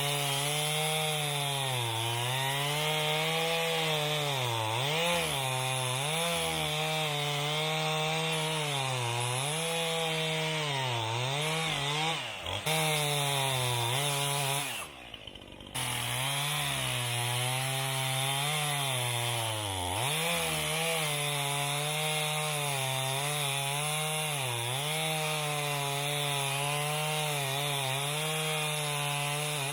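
Stihl MS271 two-stroke chainsaw running at full throttle and cutting wood, its engine pitch dipping again and again as the chain bogs down in the cut and picking back up. About 15 s in the saw drops away for about a second, then comes back to full revs and goes on cutting.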